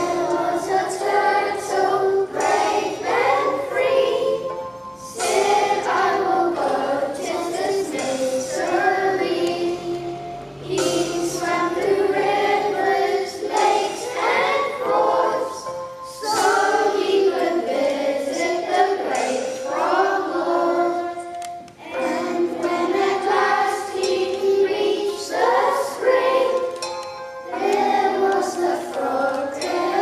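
Group of young children singing together to music, in sung phrases of about five or six seconds with short breaks between them. The singing comes in suddenly at the start.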